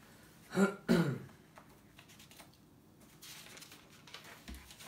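A man clears his throat in two short bursts about a second in, then faint rustling of book pages being leafed through.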